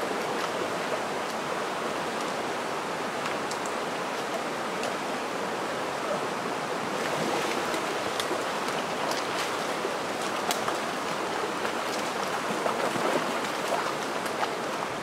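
Red Creek's water rushing steadily at a stream crossing, heard close up, with scattered small clicks and knocks over the rush.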